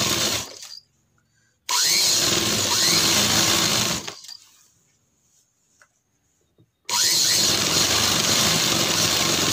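Sewing machine stitching a slanted shoulder seam in a kurta, running in bursts: a run that stops under a second in, another of about two seconds, and a third that starts near the end. Each run begins with a short rising whine as the machine picks up speed, and it stops fully in between.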